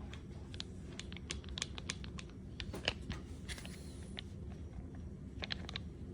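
Scattered light clicks and taps over a low steady background hum, with one sharper click about three seconds in.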